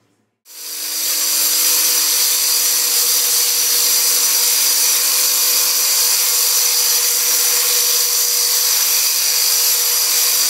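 Rockwell VersaCut mini circular saw with a diamond blade cutting through tile: a loud, steady motor whine with grinding hiss, coming in suddenly about half a second in and running unbroken.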